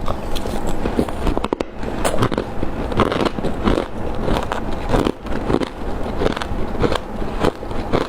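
Crushed ice being bitten and crunched close to the microphone: a rapid, irregular series of sharp crunches and crackles.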